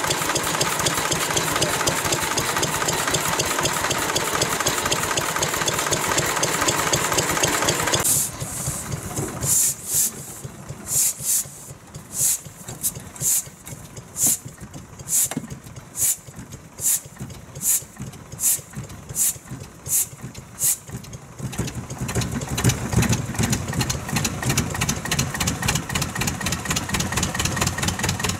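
Vintage stationary engines running. A busy, fast-running engine sound stops suddenly about eight seconds in, leaving a slow engine firing in sharp, even beats roughly every three-quarters of a second. A deeper, steadier engine sound takes over for the last several seconds.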